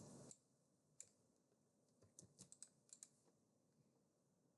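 Near silence with a few faint, sharp clicks of a computer being operated: one about a second in, then a quick run of clicks between two and three and a half seconds in.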